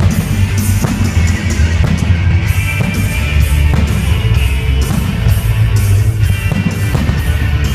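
Rock music with electric guitar, bass and drums keeping a steady beat.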